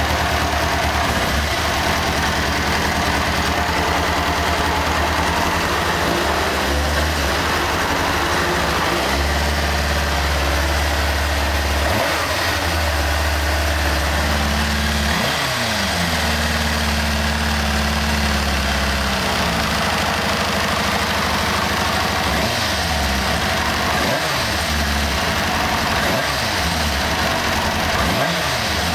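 1998 Kawasaki ZX-6R inline-four engine running at idle with the fuel tank off, the engine speed briefly changing several times. It carries the same clicking noise as before the valve adjustment, though less noticeable.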